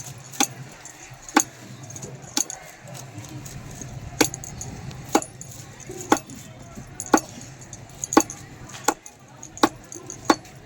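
Knife chopping fish on a cutting board, with sharp chops coming about once a second.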